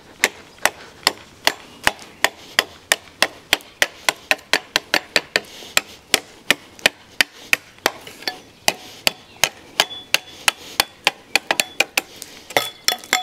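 A heavy one-piece, drop-forged steel knife blade (Cold Steel Survivalist) chopping into dry, hard wood in a fast, steady series of sharp strikes, about two to three a second.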